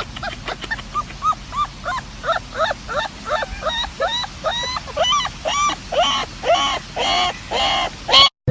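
A small dog giving a rapid run of high yips, about three a second, growing longer and louder toward the end before cutting off.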